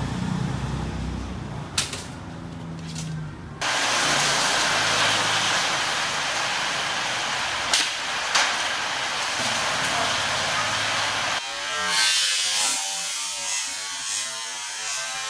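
Steady outdoor hiss of city traffic, with a few sharp snaps from a homemade leaf-spring steel bow being shot: one about two seconds in and two more close together about eight seconds in.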